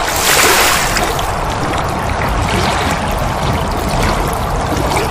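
Stock water sound effect: a steady rush of pouring, splashing water.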